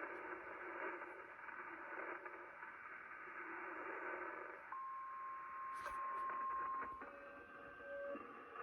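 Shortwave receiver hiss and static from a Kenwood TS-850SAT tuned to 4635 kHz, held to a narrow voice-band sound. A little past halfway a steady whistle tone comes in and holds for about two seconds, then gives way briefly to fainter lower and higher tones before the hiss alone returns.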